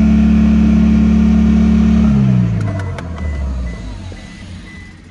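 Toyota Hiace's four-cylinder D-4D turbodiesel held at raised revs, then about two seconds in the revs drop away and the engine sound dies down. A few clicks follow, and a high beeping chime sounds about twice a second from near the three-second mark.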